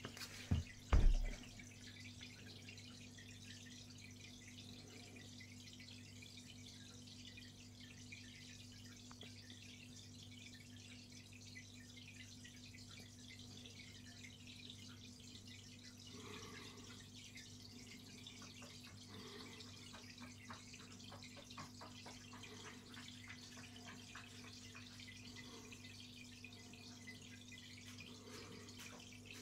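Aquarium filter running: a steady trickle and drip of water over a low, constant motor hum. A short, loud low thump about a second in.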